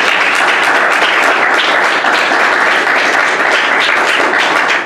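Audience applauding: dense, even clapping from many hands, starting to thin out at the very end.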